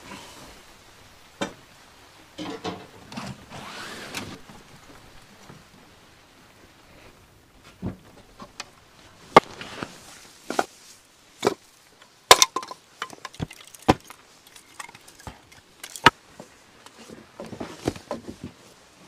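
Kindling wood being handled and broken: a string of sharp wooden knocks and cracks, roughly one a second, through the middle of the stretch, with softer rustling before and after.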